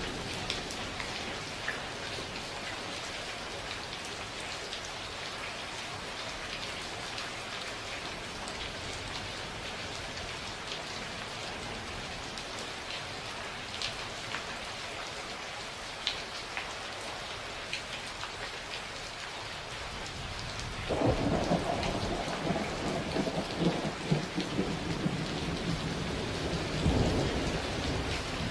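Steady rain falling, with drops pattering and ticking; about three quarters of the way through, a thunderclap breaks in and rolls on as a crackling rumble to the end, swelling again near the end.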